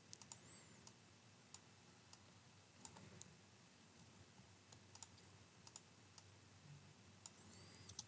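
Faint, irregular computer mouse clicks and keyboard taps, about fifteen in all, in near silence, with two faint high squeaks.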